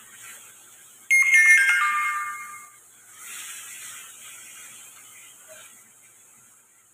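An electronic chime, like a doorbell or phone ringtone, sounds about a second in as a quick descending run of notes and rings out over about a second and a half. Faint sizzling from the wok of chilli chicken being stirred follows.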